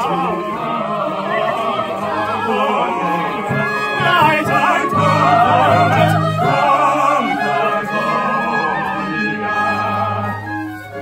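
Operatic singing by several voices together, with wide vibrato, over an orchestral accompaniment. Near the end the voices drop away, leaving the low instrumental notes.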